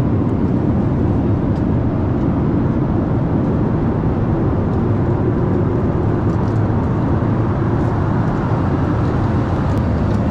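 Jet airliner cabin noise in flight: the steady low rumble of the engines and airflow, even throughout.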